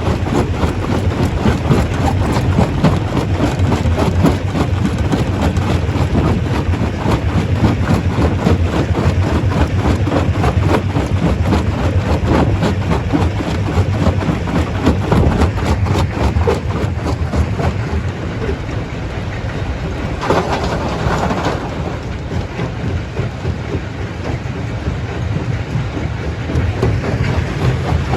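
Stone crusher running under load: a dense, continuous clatter of rock being broken over a steady low drone from its drive. About twenty seconds in there is a brief burst of harsher, brighter grinding, and the later part runs a little quieter.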